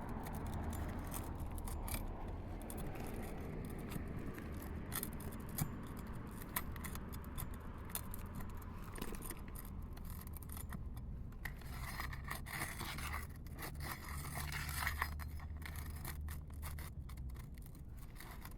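Asphalt roof shingles being scraped and pried at with a tool to free a hard-to-reach roofing nail: a run of short scrapes and clicks over a steady low rumble.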